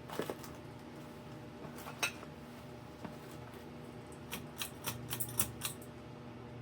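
Commander spinner ceiling fan's motor humming steadily, with a run of sharp metallic clicks and clinks. About five seconds in the low hum grows stronger, as the fan is switched from low up to medium speed.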